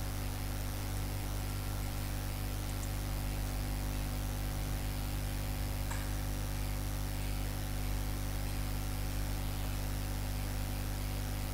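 Steady hiss with a low electrical hum underneath: the recording's background noise, with one faint click about six seconds in.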